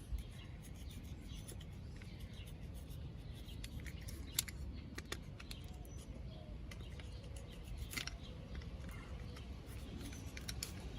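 Utility knife trimming the excess rubber plug strands off a tire tread: scattered light clicks and scrapes, with sharper clicks about four seconds in and again about eight seconds in.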